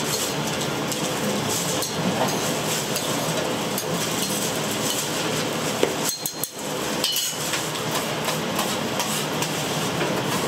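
Food-stall kitchen clatter: rapid, irregular knocks and clinks of utensils against cookware or a work board, over a steady hiss, briefly dropping away about six seconds in.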